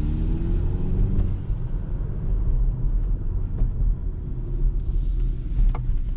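A 2020 Hyundai Elantra GT N Line fitted with an aFe Takeda cold air intake, being driven: a steady low engine and road rumble, with the engine note rising over the first second as it accelerates.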